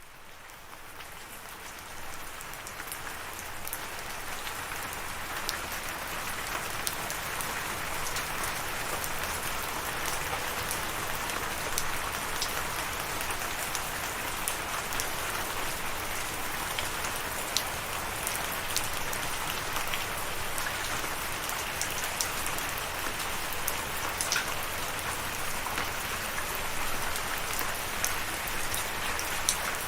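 Steady rain falling, with scattered sharp drop ticks; it fades in from silence over the first couple of seconds.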